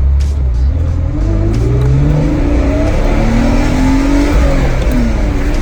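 BMW E46 325i's straight-six engine accelerating hard, its revs climbing steadily. The pitch falls briefly near the end, as at an upshift, then starts climbing again.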